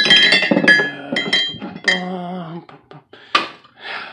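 Ceramic coffee mugs clinking and knocking together on a cupboard shelf as one is taken down, with a quick run of ringing clinks in the first second and a half. A short wavering tone follows about two seconds in, and a single knock comes near the end.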